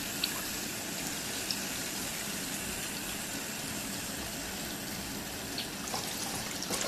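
Tap water rushing steadily through a multi-tube water-balloon filler as the bunch of balloons fills up.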